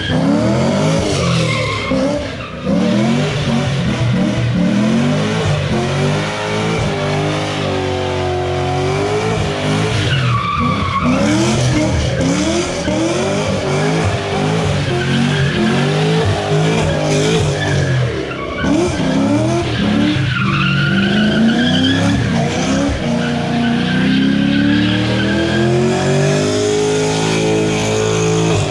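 A 2010 Camaro SS's 6.2 L LS3 V8, breathing through long-tube headers and an MBRP exhaust, revving hard during donuts while its rear tyres squeal and skid. The engine pitch climbs and falls again and again, dipping briefly about two and a half seconds in and again near the middle, and climbing in one long rise near the end.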